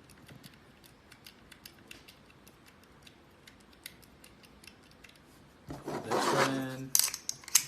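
A screw being driven into a door knob's mounting plate: faint, repeated small metal clicks as it turns. About six seconds in comes a short voice sound, then a few louder metallic clicks and clatter near the end.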